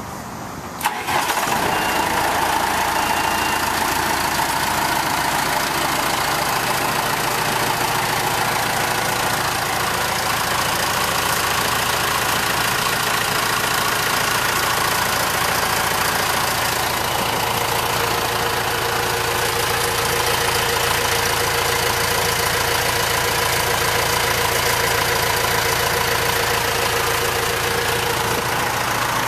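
John Deere 310G backhoe's 4045 four-cylinder diesel engine starting about a second in, then running steadily.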